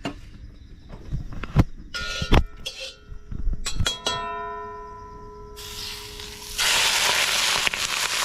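A few sharp knocks and clicks, then a ringing chime-like tone about four seconds in that fades away. Near the end a loud, steady sizzle begins, the sound of food frying in a hot pan.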